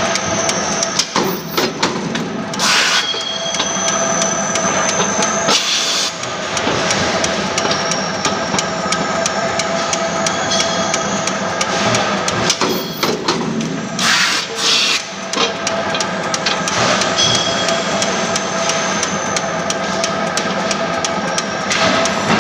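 Mechanical punch press running with a steady hum, with several sharp strokes at uneven intervals as the ram punches holes in an aluminium scaffolding tube.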